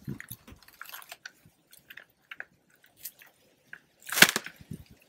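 A dry coconut being twisted and pulled off a palm's bunch by hand: dry stalks and fronds crackle and rustle in small clicks, then a loud snap about four seconds in as it tears free.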